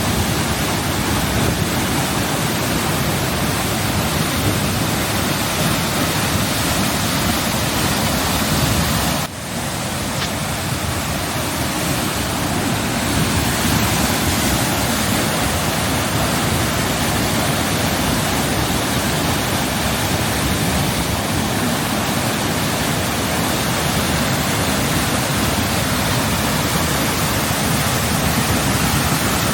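Nunobiki waterfall rushing, a loud steady wash of falling water heard close up. The sound dips sharply for a moment about nine seconds in, then carries on as before.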